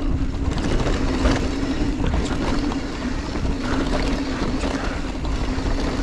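Giant Trance 3 mountain bike rolling down a dirt trail: tyre noise and a rumble over the ground, frequent small knocks and rattles from bumps, and a steady hum running through it, with wind on the microphone.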